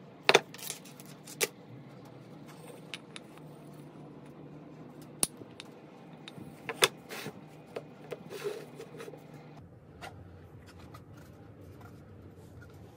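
Light knocks and clicks of a walnut lamp base, a small plastic LED bulb and its cord being handled and set in place. Two sharp knocks come in the first second and a half, then a run of clicks and taps between about five and nine seconds in.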